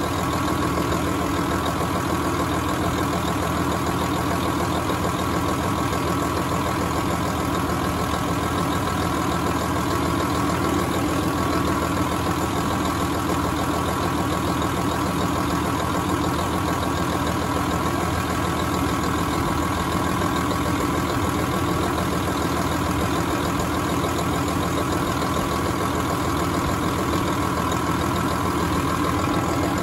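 Tractor engine idling steadily with its air-conditioning compressor running.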